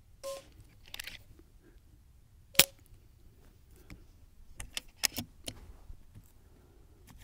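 Moderated FX Panthera .22 PCP air rifle firing a single shot, a sharp crack about two and a half seconds in. Around five seconds in come several quick clicks of the side lever being cycled.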